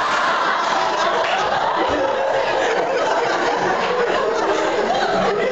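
Audience laughing and chattering, many voices overlapping with chuckles.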